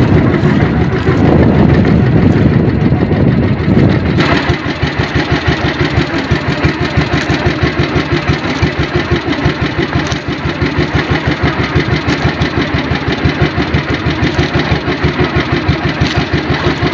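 Engine of a wooden outrigger fishing boat running under way with a rapid, even putter. It is louder and rougher for the first four seconds or so, then settles to a steady run.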